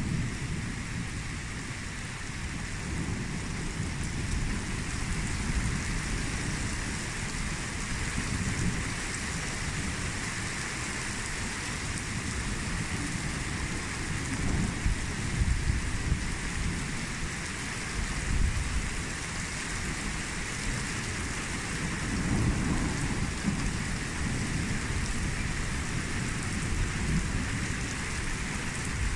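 Steady rain falling, with low rumbles of thunder swelling several times beneath it.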